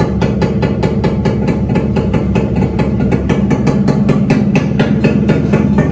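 Yamaha RX100's two-stroke single-cylinder engine idling through a silencer modified with a lengthened perforated baffle pipe, a steady, even stream of rapid exhaust pulses.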